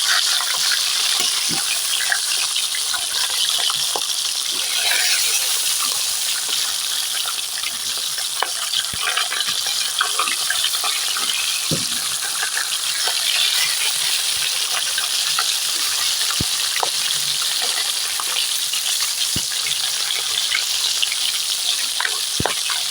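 Rohu fish pieces sizzling steadily as they fry in hot oil in a kadai, with a few sharp clicks of a spatula against the pan as the pieces are turned.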